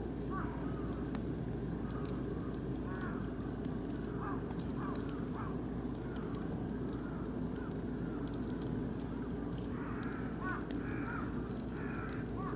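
Oak and beech wood fire crackling in a barbecue grill, with sharp irregular pops over a steady low rumble. Birds call repeatedly in the background, louder near the end.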